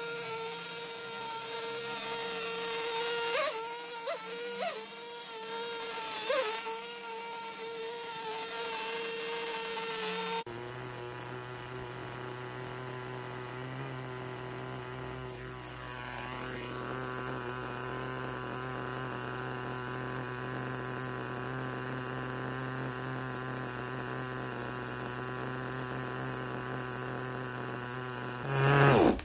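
Small two-stroke nitro glow engine of a 1/10 Tamiya RC car running during warm-up laps: first a high steady whine with a few quick throttle blips, then, after an abrupt change, idling steadily at a lower pitch, with a short loud rev just before the end.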